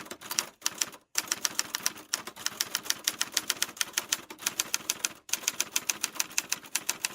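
Typewriter keys clacking in a fast, even run of about seven strokes a second, broken by two brief pauses, about a second in and about five seconds in.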